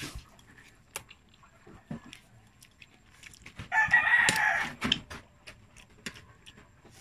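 Scattered soft clicks and smacks of someone eating noodles, with a rooster crowing for about a second roughly four seconds in, the loudest sound here.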